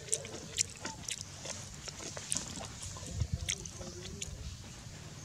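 A young macaque picking at dry litter on dirt ground and feeding: scattered sharp clicks and crackles, over a faint steady high hiss.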